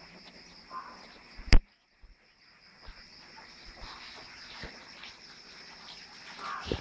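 A steady high-pitched chorus of insects in garden vegetation, with a single sharp click about a second and a half in, the loudest sound, after which the sound briefly drops out, and a soft thump near the end.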